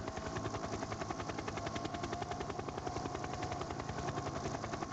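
Helicopter rotor beating steadily, a rapid, even chop.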